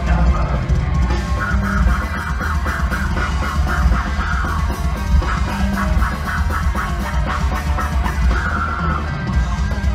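Heavy metal band playing live at full volume: distorted electric guitars, drum kit and a high melody line over a heavy, boomy low end, heard from within the crowd.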